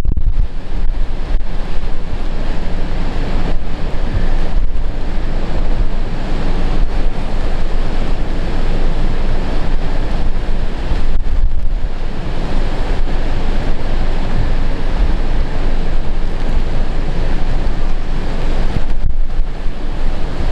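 Heavy typhoon surf crashing on the Pacific shore, with strong wind buffeting the microphone in a continuous low rumble.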